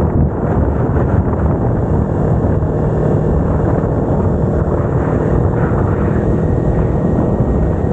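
Kawasaki Ninja 250R's parallel-twin engine running steadily while the bike cruises, mixed with wind rushing over the microphone.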